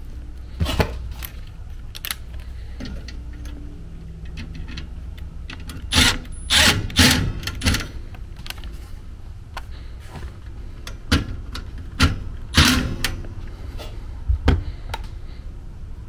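Hand screwdriver and small metal parts clicking, knocking and scraping against the furnace's sheet metal as the freshly cleaned flame sensor is screwed back into the burner assembly, in irregular clusters over a steady low hum.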